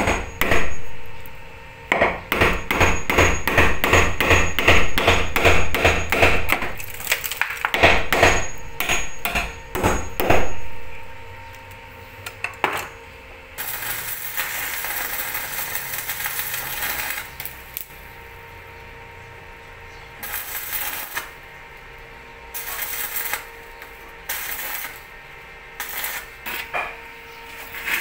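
Hammer driving nails into wood: a long run of quick, ringing strikes, several a second, that stops about ten seconds in. After it come a few seconds of steady rasping noise and then scattered short knocks.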